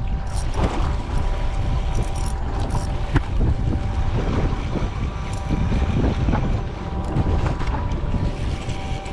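Wind rumbling on the microphone aboard an offshore fishing boat, over a faint steady hum, with a few small knocks.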